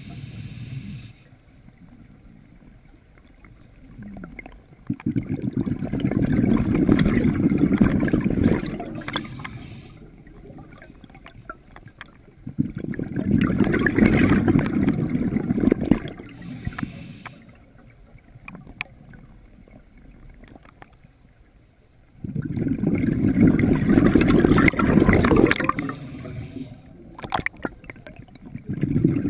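Scuba diver breathing underwater: three long rushes of exhaled bubbles, about every eight to nine seconds, with quieter pauses between breaths.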